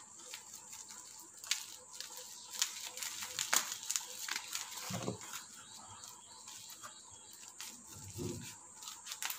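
Clear plastic bubble wrap being handled and pulled open by hand, a stream of irregular sharp crinkles and crackles. Two brief low sounds come about five and eight seconds in.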